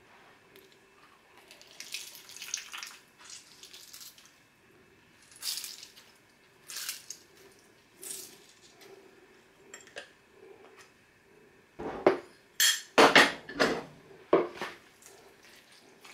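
Lemon juice squirting and dripping from a hand-held citrus squeezer into a bowl of chicken salad, in short wet bursts. About twelve seconds in comes a run of louder knocks and clatter.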